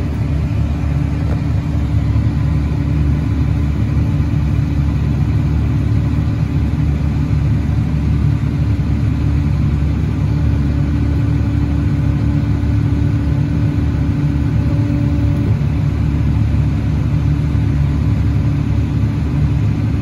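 Truck engine running steadily while driving. A steady hum over the engine noise drops out about fifteen seconds in.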